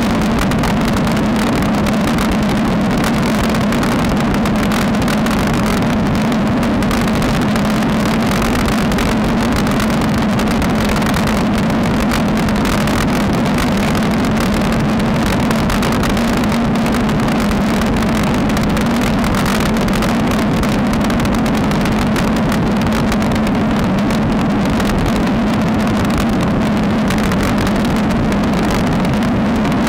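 Steady wind rush and road rumble on a sport camera's microphone riding on a road bike at speed, with a constant low hum underneath.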